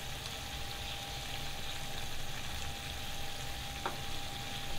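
Curry gravy of okra and curd simmering in a frying pan on a gas burner: soft, steady bubbling with a faint steady hum underneath, and a single light click near the end.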